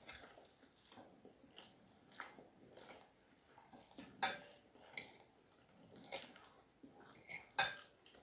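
Metal forks clinking and scraping on a plate of food: scattered light clicks, the sharpest about four seconds in and again near the end.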